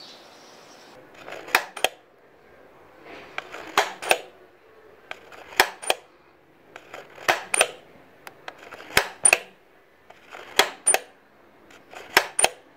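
Plastic clicker of a toy View-Master 3D camera-style viewer pressed seven times, about every second and a half, each press a pair of sharp clicks as it advances the picture reel.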